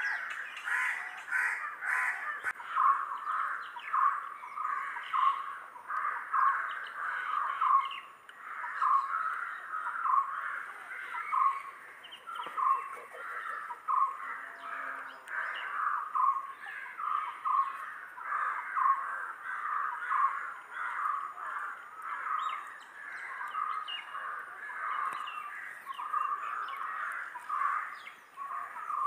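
A flock of birds calling together: many short calls overlapping and repeating about once or twice a second, without a break.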